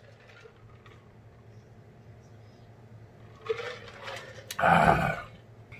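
A man drinking from a plastic jug, mostly quiet at first; about three and a half seconds in comes a short sound, then a sharp knock and a loud half-second rush of noise as the jug is brought down.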